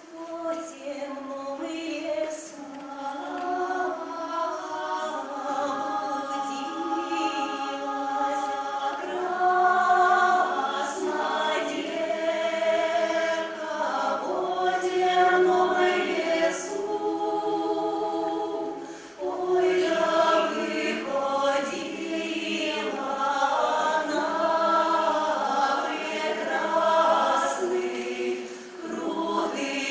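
Russian folk ensemble singing a folk song in several-part harmony, with female voices in front and no instruments to be heard. The phrases are long and held, with a brief break for breath about two-thirds of the way through.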